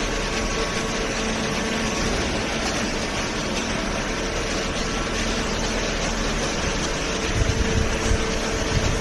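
Hydraulic power unit of a small cardboard baler, its electric motor and hydraulic pump running with a steady hum, a rougher low rumble joining about seven seconds in.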